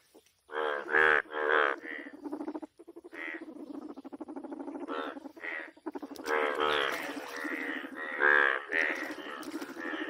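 Frogs calling in a chorus: bunches of loud pulsed croaks, with a steadier pulsed trill between them.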